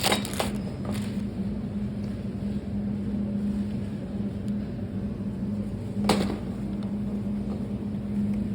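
A steady low hum with a constant drone-like tone, broken by a few short clicks: two near the start and one about six seconds in.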